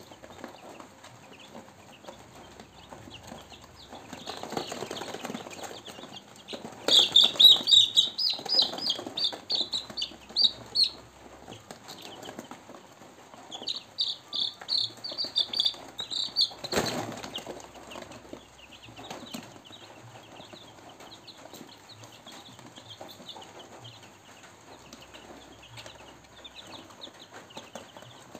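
One-week-old Kuntara 4 chicks peeping softly and continually. A chick caught in the hand gives loud, rapid peeps in two bouts, the distress calling of a handled chick, with rustling and fluttering as it is caught. A single sharp knock follows the second bout.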